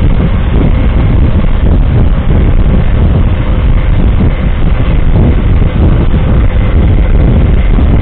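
A vehicle driving: loud, steady engine and road rumble, heaviest in the low end, with no distinct events.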